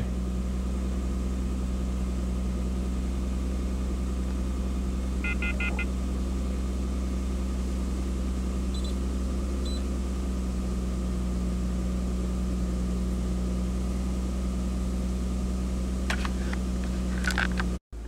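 2002 Mitsubishi Eclipse engine idling steadily, heard from inside the cabin, just after it fired up following a crank no-start. A short run of electronic beeps comes about five seconds in.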